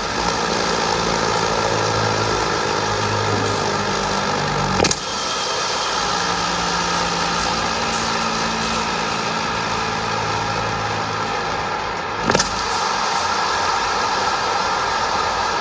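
An engine running steadily with a low hum, broken by two sharp clicks, about five and twelve seconds in.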